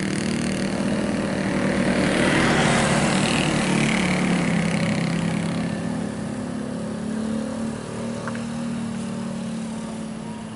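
Diesel engine of a large tour bus running steadily at low revs as the bus edges around a tight bend, loudest a couple of seconds in and then slowly fading.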